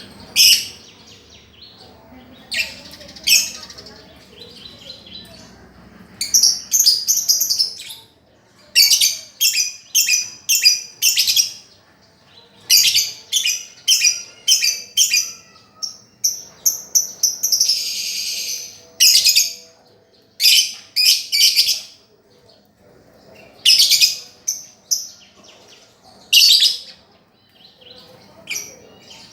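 Lovebird chirping: clusters of sharp, high-pitched chirps fired off rapidly, several a second, with short pauses between bursts and one longer, noisier call near the middle.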